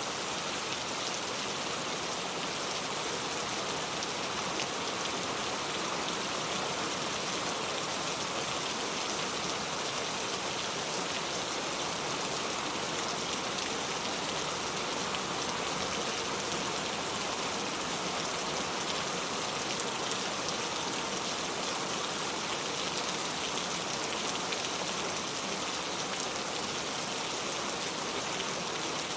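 Steady rain falling: a continuous, even hiss of rain on surfaces.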